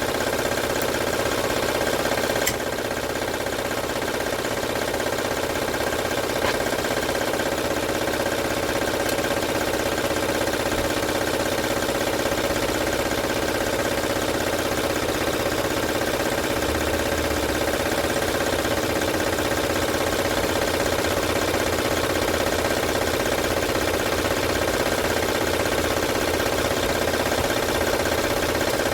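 2006 Honda Odyssey's 3.5 L V6 running steadily with a loud rattle, likened to a rattlesnake, which the mechanic traces to a damaged timing belt.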